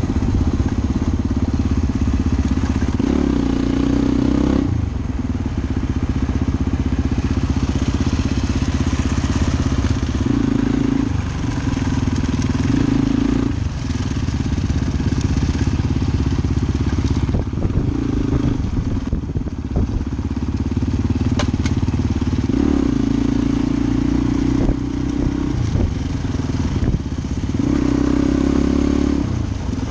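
Suzuki DR-Z400 single-cylinder four-stroke engine running under way on a dirt road. The engine note swells and rises in pitch about half a dozen times as the throttle is opened and then eased off.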